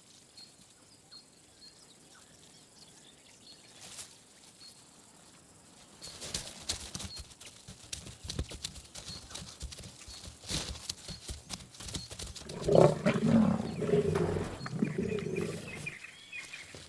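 African lions growling over a freshly killed young giraffe, loudest in the last few seconds. Before that come scuffling and sharp cracks of brush.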